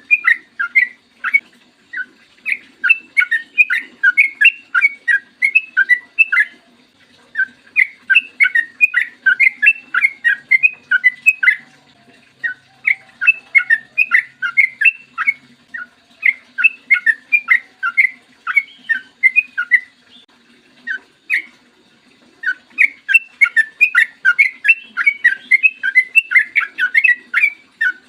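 Yellow-vented bulbul singing long runs of quick, loud notes, each run lasting a few seconds before a short pause. A faint steady low hum lies underneath.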